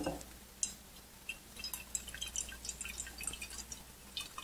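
Lead nitrate solution sloshing in a glass Erlenmeyer flask as it is swirled: a faint, irregular patter of small liquid drips and clicks against the glass.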